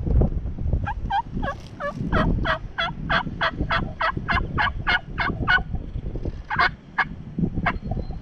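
Turkey yelping: a fast, evenly spaced run of about fifteen yelps, roughly three a second, then a few single yelps near the end, over a low rumble.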